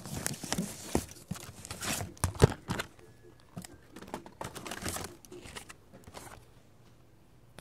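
Rustling and crinkling of a phone being handled, with cloth brushing over the microphone and scattered sharp clicks and knocks, one louder knock about two and a half seconds in; the handling noise dies away to faint room noise in the last second or so.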